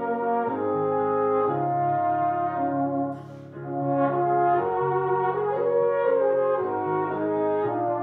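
Tenor horn and baritone horn playing a slow duet in long held notes over piano accompaniment, with a short break in the phrase about three seconds in.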